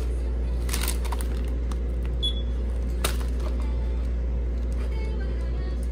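A barcode scanner on a self-checkout kiosk gives one short, high beep about two seconds in as a snack is scanned, over a steady low hum. A few faint clicks come along with it.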